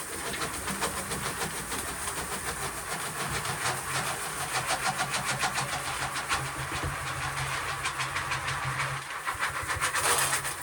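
Corn sheller running, stripping kernels from the ears with a fast, even rattle over a steady low hum.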